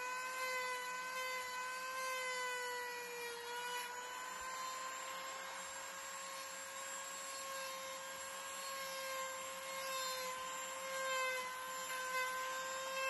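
Ryobi corded rotary tool running at high speed, its bit carving into a wooden hiking stick: a steady high whine that dips slightly in pitch about three to four seconds in, then recovers.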